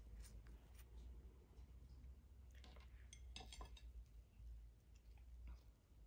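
Near silence with faint clicks and light taps as apple slices are handled and pressed into batter in a ceramic tart dish, with a short run of clicks a little past three seconds in.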